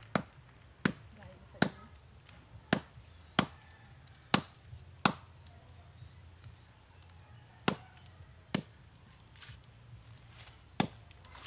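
Bolo knife chopping into a palm trunk: about ten sharp blade strikes at an uneven pace, seven in quick succession, then a pause of a couple of seconds before three more.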